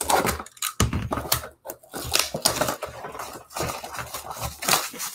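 Clear plastic shrink wrap on a cardboard trading-card box being slit with a utility knife and peeled off, crinkling and crackling in a dense run of small crackles.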